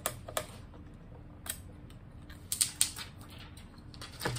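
Thin protective plastic film being peeled off a digital wall clock's LCD screen: scattered crackles and ticks, with a quick, louder run of crackles a little past the middle.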